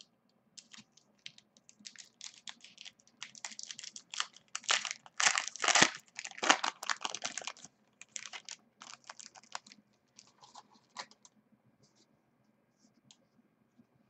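Foil wrapper of a Bowman Platinum baseball card pack crinkling and tearing as it is opened by hand. The crackling is loudest through the middle and thins to a few faint rustles after about eleven seconds.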